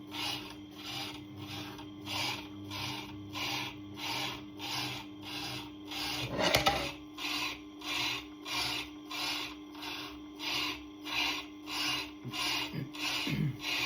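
Tormek TT-50 truing tool's diamond scraping across a turning Tormek grinding stone, cutting it flat and true. The rasp pulses evenly about twice a second as the diamond bites the stone's uneven surface, over the machine's steady motor hum, with a louder rasp about halfway.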